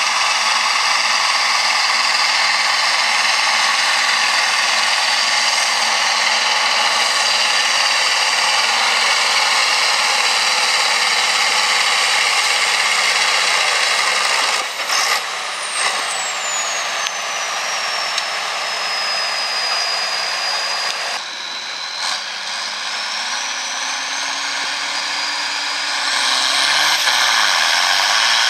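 Turbocharged diesel engine of an International Harvester pulling tractor running hard under load, heard as a harsh, distorted engine noise with a high turbo whistle. About halfway through, the whistle falls steadily in pitch as the engine comes off the throttle. After a break, a whistle rises again and the engine noise swells near the end as the next tractor loads up.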